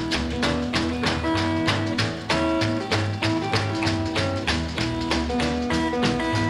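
Rockabilly record playing: guitar over a bass line and a steady, driving beat, with no singing.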